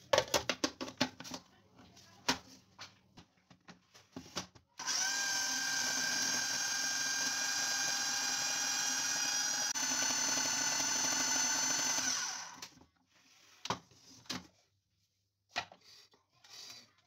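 Plastic clicks and knocks as the lid goes onto a Kenwood food processor bowl. About five seconds in, the motor starts with a brief rise in pitch and runs with a steady whine for about seven seconds, grinding sesame seeds into tahini paste, then winds down. A few more knocks follow as the bowl is handled.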